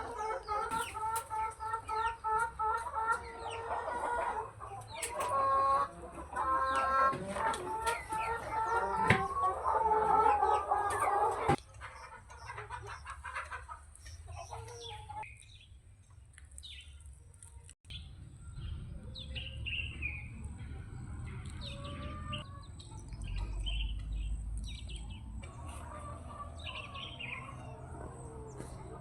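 A flock of chickens clucking and calling, loud and busy for the first eleven seconds or so, then dropping suddenly to fainter scattered chirps over a low rumble.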